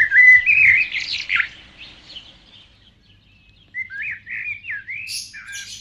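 Songbirds chirping at dawn: a quick run of whistled chirps at the start, then a series of short, repeated chirps from about four seconds in.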